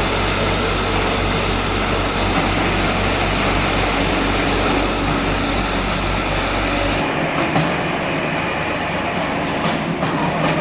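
Portable car baler running, its engine-driven hydraulic power unit giving a steady low hum under a loud mechanical noise. About seven seconds in the low hum drops away, leaving a rougher clattering sound with a few knocks.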